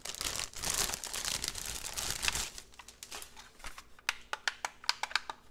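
Clear plastic bag crinkling as hands pull a device out of it. The crinkling is dense for the first two seconds or so, then thins to scattered crackles and light clicks.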